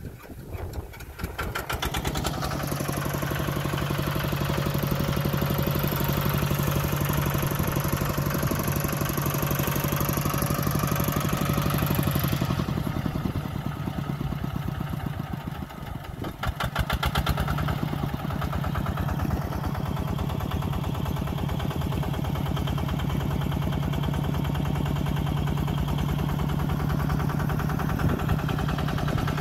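Kubota engine running steadily with a rapid, even firing beat. It picks up right at the start, eases off for a moment about halfway through, then comes back up and keeps running.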